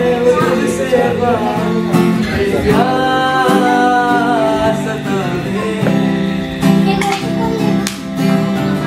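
A man singing live while strumming an acoustic guitar, holding one long note around the middle.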